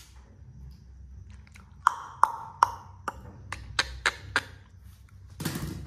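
A run of about eight light clicks and short metallic pings over two and a half seconds as a small knife works at a red onion being peeled and trimmed, then a brief rustle near the end.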